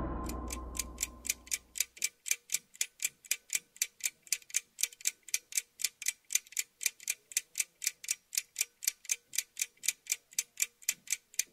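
The tail of a music sting fades out over the first two seconds, then a steady, crisp ticking sound effect at about three to four ticks a second.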